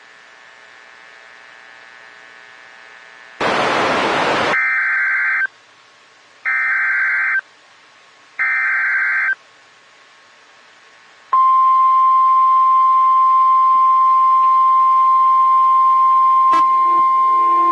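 Emergency alert on NOAA Weather Radio: a burst of static, then three one-second bursts of warbling SAME header data tones about a second apart. Then, about eleven seconds in, the steady warning alarm tone starts. Near the end a click, and a second, lower tone joins it.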